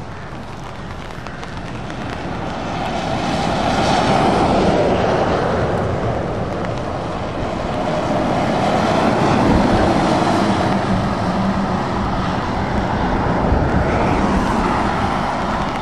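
DAF XF and Scania tractor units driving past one after another on a wet road: diesel engines running with tyre hiss and spray. The sound swells as each lorry passes, loudest about four and again about nine seconds in.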